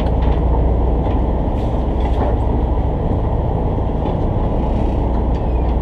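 Fishing charter boat's engine running, a steady low rumble, with a few light clicks from handling the rod.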